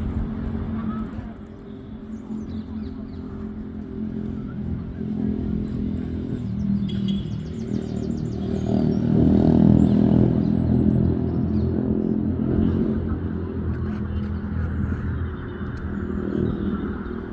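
A motor vehicle's engine humming steadily, growing louder to a peak about halfway through and then easing off.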